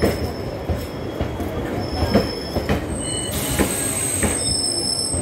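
Indian Railways passenger coaches rolling past along the platform: wheels clacking over rail joints about one to two times a second over a steady rumble, with high-pitched wheel squeal setting in from about three seconds in.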